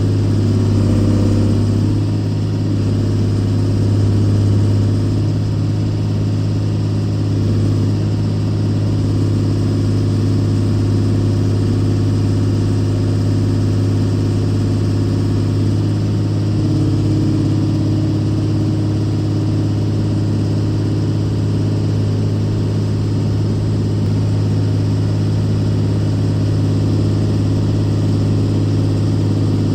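Case 125B excavator's diesel engine running steadily with a deep, even hum.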